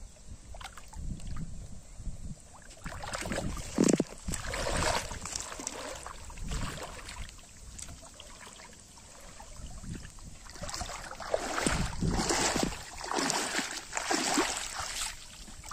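Splashing and sloshing of pond water as a person wades through it, coming in irregular bursts, with busier stretches about three seconds in and again from about eleven seconds on.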